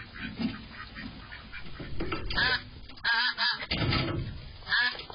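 Ducks quacking, picked up by a security camera's microphone: faint quick calls at first, then several loud, harsh quacks from about two seconds in as the birds flap and scramble.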